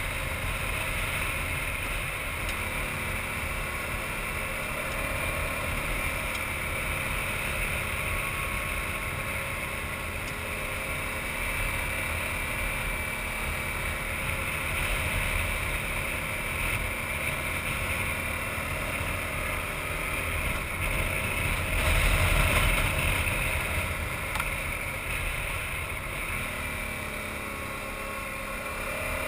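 Adventure motorcycle riding at a steady pace on a gravel road: the engine running under the rumble of tyres on gravel and wind, swelling briefly about three-quarters of the way through.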